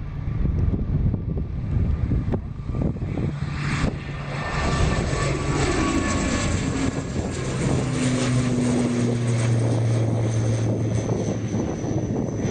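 Wind buffeting the microphone, then from about four seconds in a propeller aircraft's engines grow louder and run steadily as it passes, with a thin high whine near the end.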